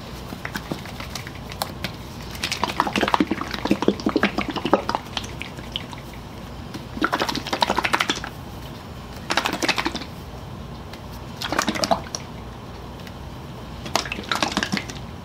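Hand scrubbing on a tool, likely a Scotch-Brite pad or polishing cloth worked on a handle or steel shank. It comes in five scratchy bouts of one to two and a half seconds each, the longest about three seconds in, over a steady low hum.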